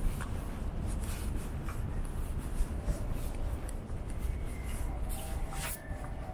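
Street ambience on a walk: a steady low rumble with scattered light scuffs and clicks, and a faint steady tone in the last second or so.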